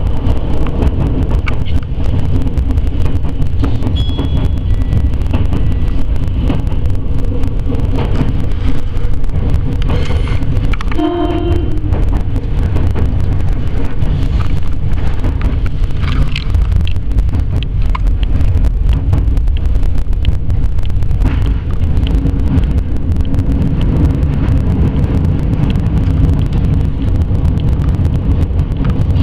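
Electric commuter train heard from the driver's cab as it pulls away and runs along the track: a steady, loud rumble of wheels and motors. About eleven seconds in there is a short pitched tone.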